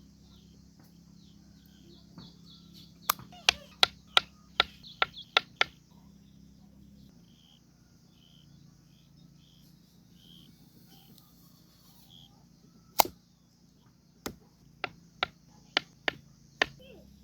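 A run of about eight sharp clicks or knocks in quick succession, then one louder knock, then a second run of about seven. Faint high chirps run underneath.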